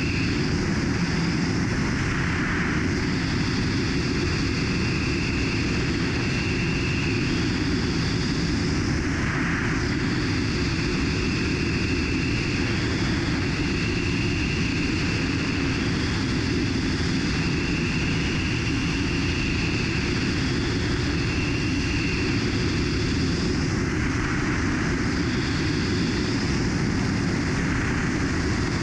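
Su-25SM3 attack jet in flight, heard from an externally mounted camera: a steady rush of airflow over the aircraft with the drone of its twin turbojet engines, and a faint high whine that comes and goes.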